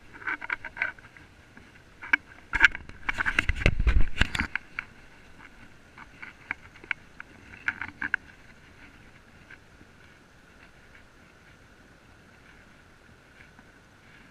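A shallow river runs over rocks with a steady rush. Close splashing and knocks come over it, densest and loudest about three to four seconds in, with scattered clicks until about halfway through.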